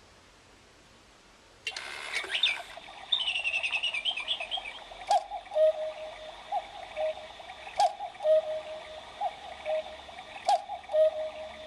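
Battery-powered German cuckoo clock sounding the hour, starting suddenly about two seconds in: a high twittering, then repeated two-note calls, a higher note dropping to a lower one, with a sharp click about every two and a half seconds. It sounds a bit sad because its batteries are going flat.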